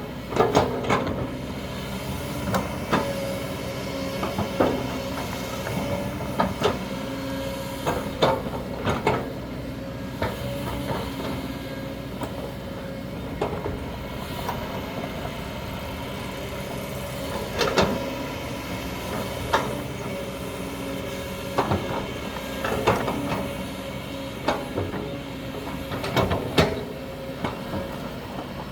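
Diesel engine of a Kobelco excavator running steadily, with a constant hydraulic whine over it. Sharp knocks and clanks come at irregular intervals, a dozen or more across the stretch.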